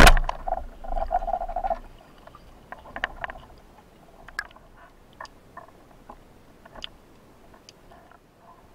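Band-powered speargun fired underwater: one loud, sharp crack, followed by a rattling buzz for about a second and a half, then scattered clicks and taps as the shooting line is handled.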